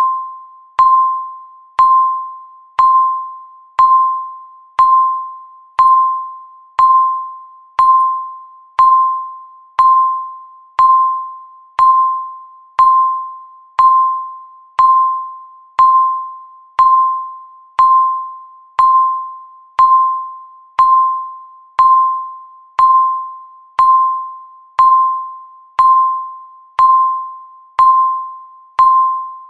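Countdown timer's electronic tick sound: a single short ringing tone struck once a second, each stroke sharp at the start and dying away before the next.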